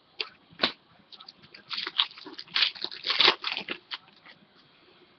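Foil wrapper of a Topps Chrome baseball card pack crinkling and tearing as it is opened by hand. A couple of sharp clicks come first, then about two seconds of dense crinkling in the middle.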